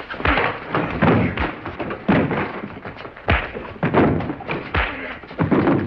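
Staged fistfight: a string of heavy punches and thuds of bodies and furniture, about one blow every second, with scuffling in between.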